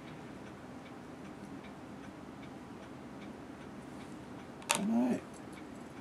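Quiet room with a faint, steady ticking, and a brief voiced sound about five seconds in.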